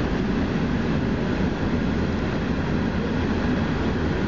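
Freight train of boxcars rolling past: a steady low noise of wheels on the rails, with no horn or breaks in it.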